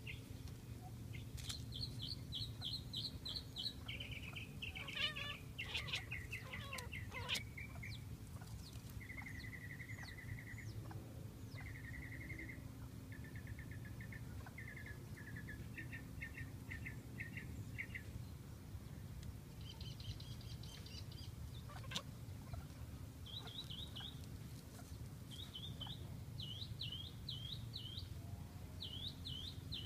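American goldfinches singing: a run of twittering phrases, each a quick series of repeated high notes, changing pitch and pattern from phrase to phrase, over a low steady hum.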